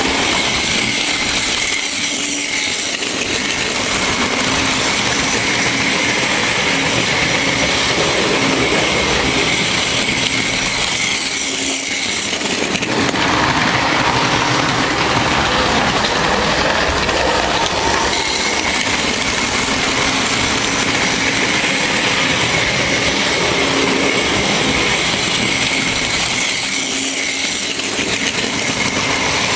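Märklin model train running on the layout's track: a steady rumble and clatter of wheels on the rails with a faint motor hum, louder for a few seconds as the coaches pass close by about halfway through.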